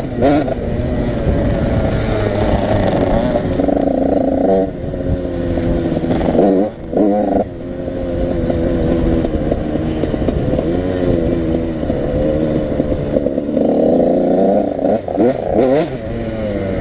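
85cc motorcycle engines revving, the pitch climbing and falling again and again, with brief drops off the throttle and a spell of high revs near the end.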